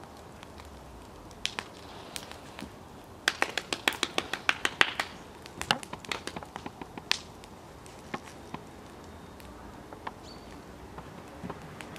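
A quick run of sharp taps or claps, about six a second for nearly two seconds, followed by a few scattered single taps.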